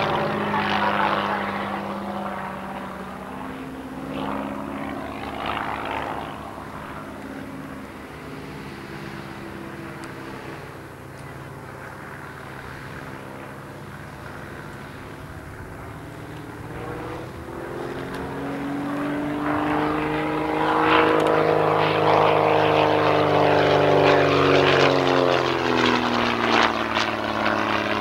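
Single-engine propeller aircraft flying aerobatics, its engine note rising and falling in pitch and loudness with the manoeuvres. The engine fades somewhat in the middle, then grows loudest in the second half as the plane dives low, its pitch arching up and then falling away as it passes near the end.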